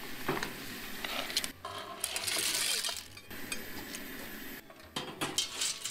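Clams in their shells and their broth being tipped from a small metal pot into a pot of spaghetti. The shells and metal pots clink, and there is a short pour of liquid.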